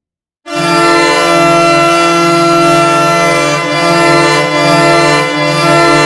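An NHL goal horn remixed in the 'G Major' meme style, with several pitch-shifted copies layered into one buzzing chord. A loud, steady blast starts suddenly about half a second in and holds without a break.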